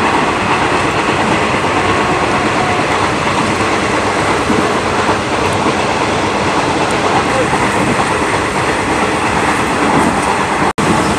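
Inside a moving passenger train carriage with open windows: steady, loud running noise of the wheels on the rails. The sound cuts out for an instant near the end.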